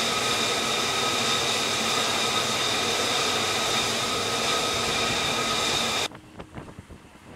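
Jet engine running steadily on a carrier flight deck, a loud roar with a constant high whine. About six seconds in it cuts off abruptly, giving way to wind buffeting the microphone.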